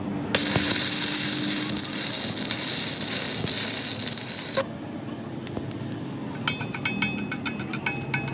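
Metalwork on a truck axle: a steady hiss for about four seconds that cuts off suddenly, then rapid metallic tapping with a ringing clink.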